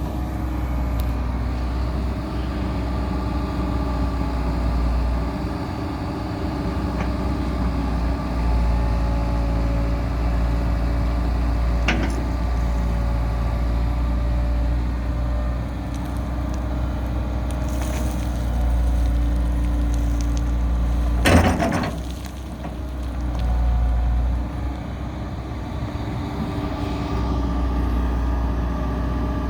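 Komatsu PC160LC-7 hydraulic excavator's diesel engine running steadily with a deep rumble, its pitch shifting slightly as the machine works. A short click comes about twelve seconds in and a sharp metallic knock about twenty-one seconds in.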